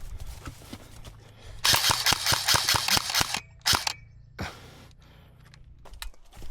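Airsoft gunfire: a rapid string of sharp shots starting about one and a half seconds in and lasting under two seconds, followed by a couple of single shots.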